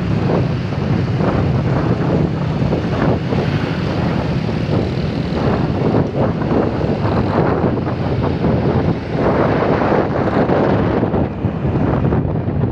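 Heavy bus engine running with a low, steady drone, heard through wind buffeting the microphone.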